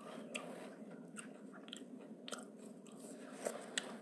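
Faint handling noise from a phone being moved while filming: scattered small clicks and crackles over a low hiss, with a couple of sharper ticks near the end.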